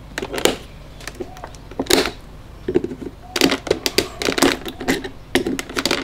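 Hard plastic clicking and snapping from the melted-on plastic tabs of a Mercedes W204 door panel's handle trim piece being cut off and the piece worked loose by hand. A scattered run of sharp clicks, thickest around the middle and near the end.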